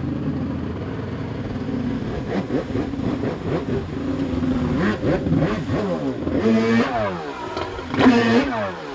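Stand-up jet ski engine revving up and falling back again and again as the rider carves turns, with two strong rises near the end.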